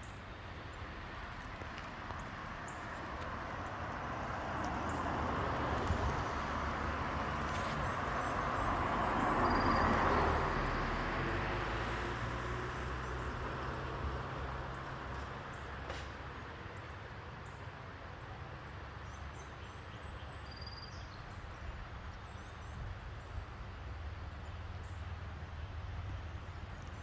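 A motor vehicle passing by on the road. Its engine and tyre noise swells, is loudest about ten seconds in, then fades away.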